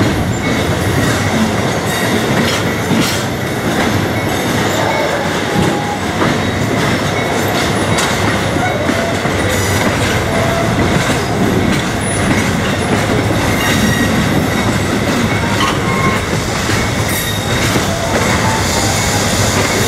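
Passenger train rolling along the track, heard from on board: a steady rumble of steel wheels on rail with scattered clicks over rail joints and a few faint, brief wheel squeals.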